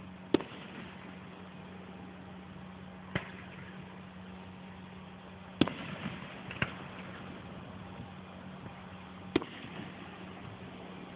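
Aerial firework shells bursting at a distance: five sharp booms a few seconds apart, the third followed by a brief spatter of crackling, over a steady low hum.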